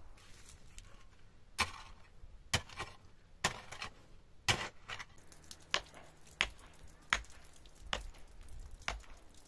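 A small folding shovel chopping into earth, one sharp strike about every second.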